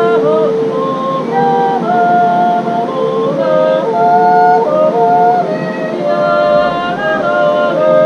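Swiss folk yodelling with accordion accompaniment: long held notes that step up and down between pitches, several lines sounding together.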